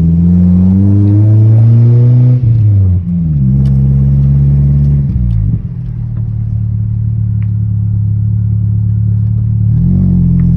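Nissan D21 mini truck's engine revving from inside the cab as it accelerates: the pitch climbs, drops sharply twice between two and three seconds in as it shifts, falls away again around five seconds, runs steady, then climbs once more near the end.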